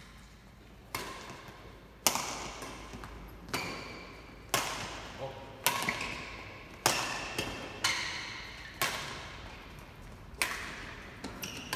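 Badminton rackets striking a shuttlecock in a doubles rally: about ten sharp smacks, roughly one a second, each echoing in a large hall.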